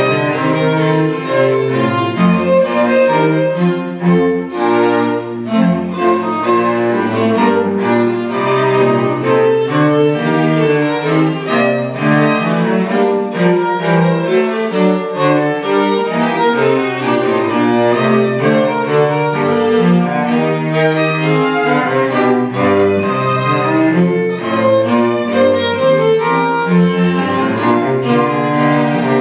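String quartet of two violins, viola and cello playing live, a continuous passage of quick, densely packed notes.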